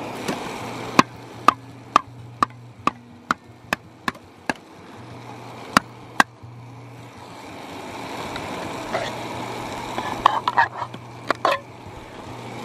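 Sharp metal taps on a camping cook pot, about two a second for a few seconds, then two more, and a quick cluster of clicks near the end. A steady low hum and a hiss that grows louder lie underneath.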